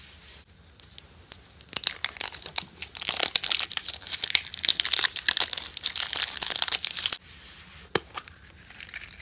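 A printed plastic wrapper crinkling and tearing as it is peeled off a surprise egg's plastic capsule. The dense crackling rustle lasts about five seconds and stops abruptly. A single sharp click follows near the end.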